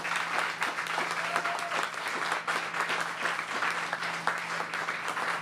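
Audience applauding: steady, dense hand clapping from a roomful of supporters.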